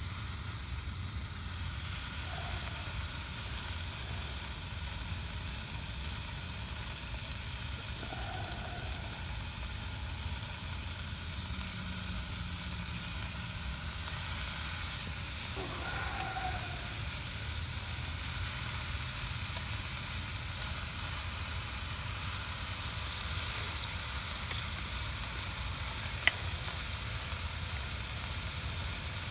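Bacon sizzling steadily in a hot pan over a campfire, with one sharp tick near the end.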